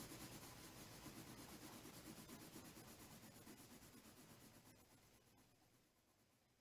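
Faint colored pencil shading on paper: repeated scratchy strokes of the lead, fading out about five to six seconds in.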